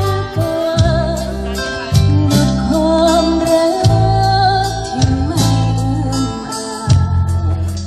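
Music: a song with a singing voice over a bass line that changes note about once a second.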